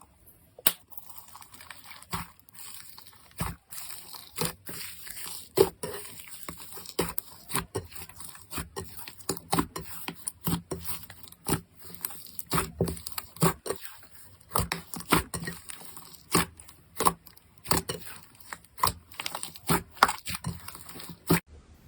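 Slime being squeezed and poked, giving irregular sharp wet pops and clicks, a few a second.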